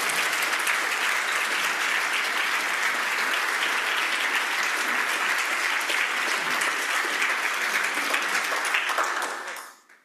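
A large audience applauding steadily, the clapping dying away near the end.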